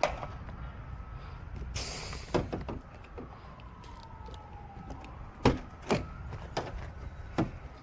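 A car door and its lock being worked during a lockout, giving several sharp clicks and knocks, the loudest two about half a second apart midway. A short hiss comes about two seconds in, over a steady low outdoor rumble.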